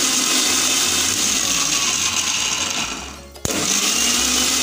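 Kitchen mixer grinder with a steel jar running as it grinds pomegranate seeds with a little water; about three seconds in it is switched off and winds down, then is switched back on half a second later. It is pulsed in short bursts so that the hard inner seeds stay whole while the juicy pulp is crushed.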